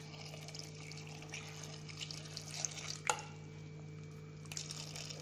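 Water being poured into a pot of cut vegetables, faint, with one sharp clink about three seconds in, over a steady low hum.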